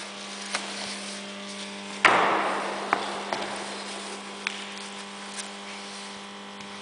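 Knocks and thuds on a wooden floor during grappling: one loud thud about two seconds in, a sharp click just after, then a few lighter knocks. A steady low electrical hum runs underneath.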